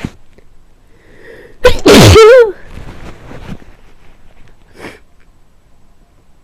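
A person with a cold sneezing once, loudly, about two seconds in: a short breath in, then a sudden explosive burst and a voiced 'achoo' that falls in pitch. Quieter breathy sounds follow.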